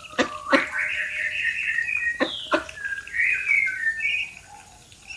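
Young ducks peeping in high, warbling whistle-like calls as they feed, with four sharp clicks: two near the start and two a little after two seconds in.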